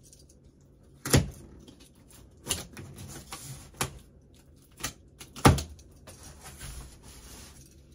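A large cardboard shipping box being opened by hand along its taped seam: sharp knocks and thumps on the cardboard, the two loudest about a second in and about five and a half seconds in, with short scraping and slitting noises between them.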